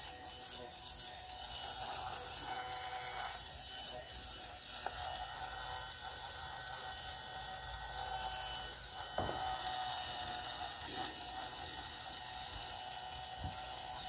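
Battery-operated toy iron playing its electronic sound effect while lit: steady electronic tones over a hiss, with a few light plastic clicks.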